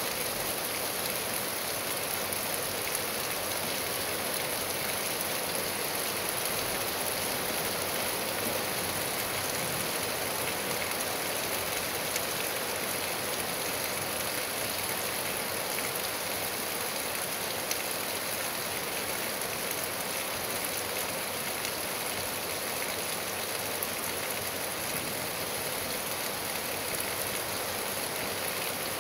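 Steady rain falling, an even hiss that holds level throughout with no thunder.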